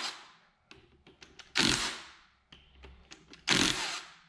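Short bursts of a power tool spinning bolts loose on the motorcycle engine's cylinder head, about one every two seconds, with light clicks of tools against metal between them.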